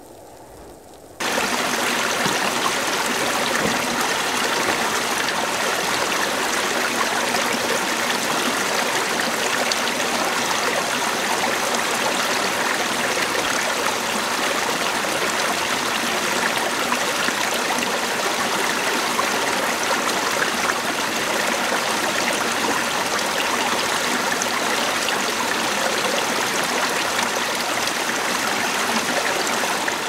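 Steady rush of water from a rocky mountain stream, starting abruptly about a second in.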